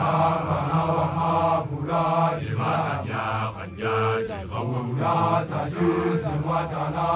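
A large group of men chanting together in repeated short phrases, with a higher voice held over the group about every two seconds.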